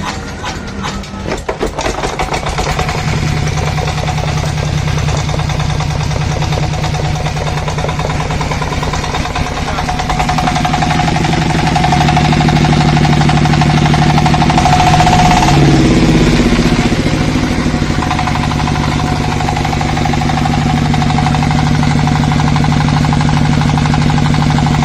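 Hand-crank-started single-cylinder diesel engine just after starting: uneven for the first couple of seconds, then running steadily. It gets louder about ten seconds in, and its pitch swings briefly around fifteen seconds in before it settles again.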